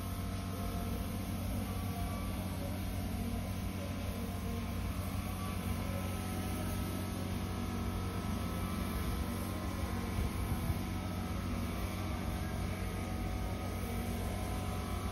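A motor running steadily, a constant low hum without breaks or changes in speed.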